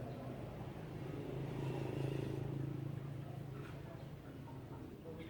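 A motor vehicle passing, its low hum swelling about two seconds in and then fading, with a few faint high bird chirps.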